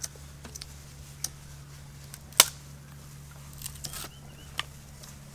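Scattered short clicks and taps from lighting a clay charcoal stove by hand, with a lighter being worked and kindling cut with a knife; one sharp click about two and a half seconds in is the loudest. A faint steady low hum sits underneath.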